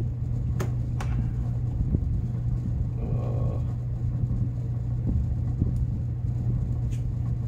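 Steady low hum in the background, with a few sharp clicks of hands working hoses and parts at a snowmobile oil tank, the clearest two about half a second apart near the start.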